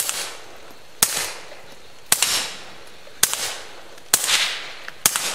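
A suppressed Walther P22 .22 LR pistol fired six times at a steady pace of about one shot a second. Each shot is a sharp crack followed by a short fading echo.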